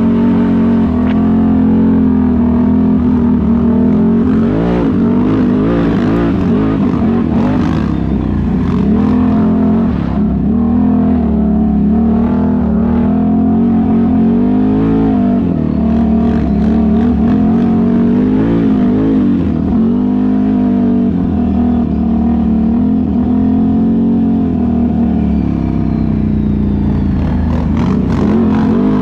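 ATV engine running at close range while riding a dirt trail, its pitch rising and falling again and again as the throttle is worked.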